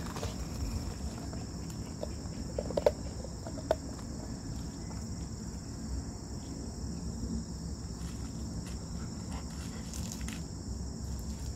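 Insects chirping in a steady high-pitched drone, with two brief sharp clicks about three seconds in as a dog noses an ice cube on gravel.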